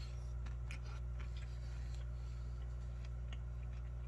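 Steady low hum with faint scattered crunching clicks: a person chewing crunchy oat cereal.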